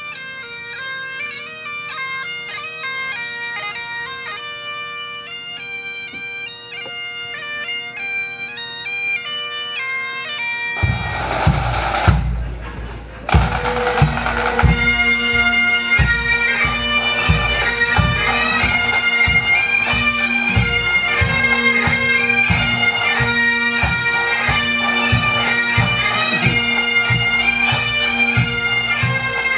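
Great Highland bagpipes playing a tune over their steady drones, growing louder. About eleven seconds in, drums come in with a regular beat, and after a brief drop the pipes and drums play on together.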